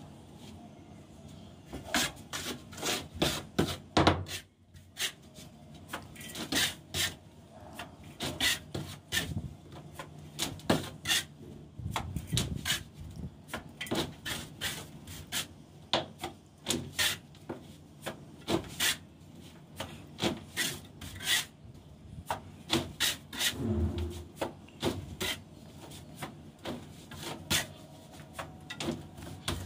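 Mason's trowel scraping up cement mortar and flinging it onto a concrete ceiling: an irregular run of sharp scrapes and slaps, one to several a second.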